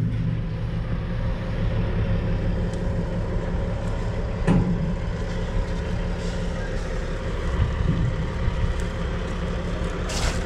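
An engine running steadily at idle, a low even hum, with a single knock about four and a half seconds in.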